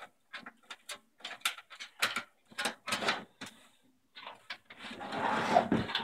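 Power-supply cables and plastic connectors being handled and sorted: a string of short clicks and rattles, then a louder scraping rustle near the end as cables are dragged.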